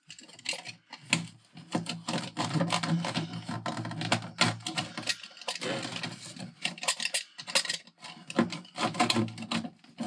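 Hand cutting and working loose of an old fitting: a rapid, irregular run of clicks, snips and rattles with short scraping stretches.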